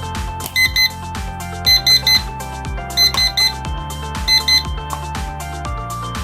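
Digital kitchen timer's alarm beeping in quick groups of two or three short, high beeps, about every second and a half, over background music.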